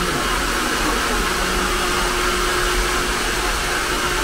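Hair dryer running steadily: a constant blowing rush with a faint steady hum.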